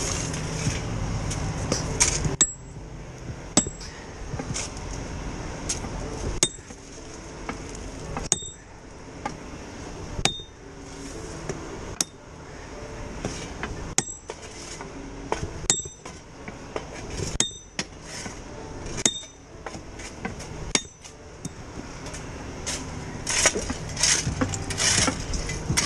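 Spike maul hand-driving a steel railroad spike into a wooden tie: a series of sharp metallic clanks with a high ringing note, one every second or two.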